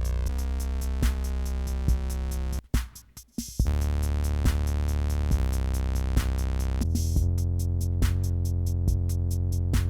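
Electronic beat from an Elektron Digitakt II drum machine and sampler: a sustained bass and synth chord under a steady drum pattern. It cuts out for about a second near the three-second mark, comes back, and around seven seconds the chord changes and a fast run of ticking percussion comes in.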